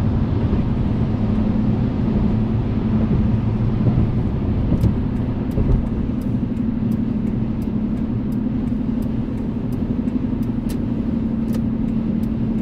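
Car cabin noise while driving on a freeway: the steady low rumble of engine and tyres on the road, with a steady drone underneath, heard from inside the car. Faint light ticks come in from about five seconds in.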